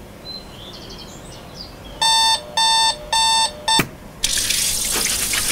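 Faint bird chirps, then a digital alarm clock beeping loudly in three even beeps and a fourth that is cut short by a slap on the clock, about four seconds in. A loud rushing noise follows.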